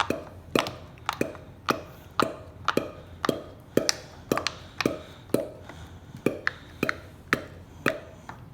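Bubbles of a giant silicone pop-it fidget toy being pressed one after another, about two pops a second. Each gives a sharp pop followed by a short, falling hollow tone.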